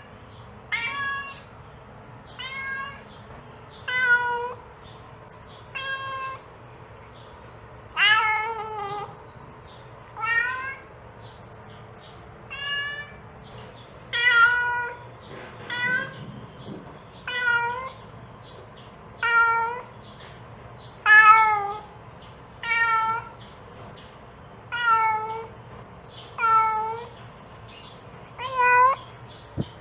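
Mother cat meowing over and over, calling for her kittens: a run of short calls, one about every one and a half to two seconds, some rising and some falling in pitch.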